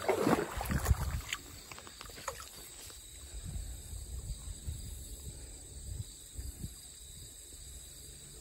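A brief burst of rustling with a sharp knock about a second in, then a low steady outdoor rumble with faint scattered knocks.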